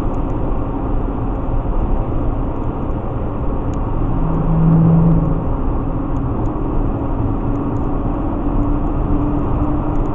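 Road and engine noise from inside a vehicle cruising on a highway: a steady rushing hum. About four seconds in, a low, even drone sounds for a second and a half, the loudest moment.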